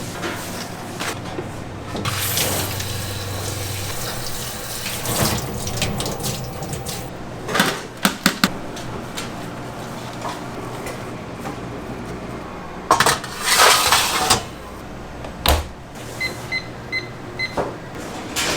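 Restaurant kitchen work: water running at a sink, with sharp knocks and clatter of utensils or dishes, and four quick electronic beeps near the end.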